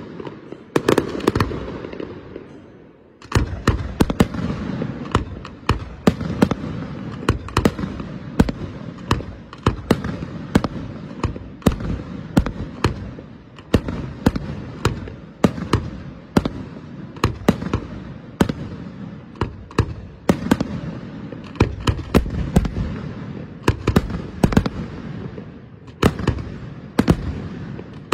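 Aerial fireworks bursting in quick succession: many sharp bangs one after another over a low rumble. After a short lull about three seconds in, the bangs come thick and fast.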